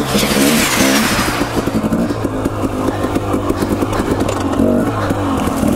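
Husqvarna TE250 two-stroke dirt bike engine revving up and down with the throttle while riding rocky single track.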